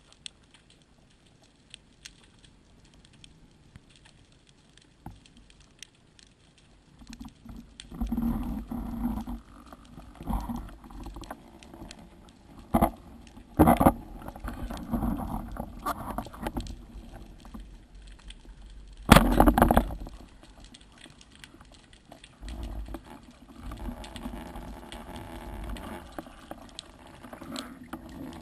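Underwater sound from a speargun-mounted camera. For the first several seconds there are only faint scattered clicks. Then comes rougher water noise with loud bursts, two of them near the middle.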